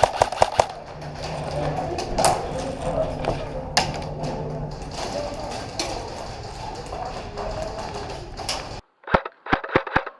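Airsoft guns firing sharp pops: a quick cluster at the start, then scattered single shots over the background noise of the field. Near the end the background cuts out and a rapid string of four or five shots follows.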